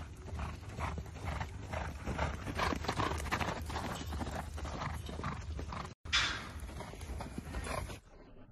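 Horse cantering on a sand arena, its hoofbeats falling in a steady rhythm of about two to three strides a second. The sound breaks off briefly about six seconds in and is followed by a short, loud rush of noise.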